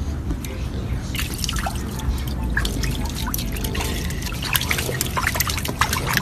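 Water dripping and splashing in many quick, irregular small drops.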